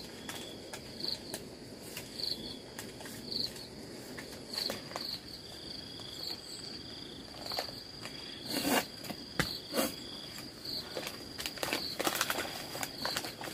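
An insect chirping in short, high, evenly spaced calls, about one and a half a second. From about halfway through, a run of crunching rustles breaks in, loudest a little past the middle and again near the end.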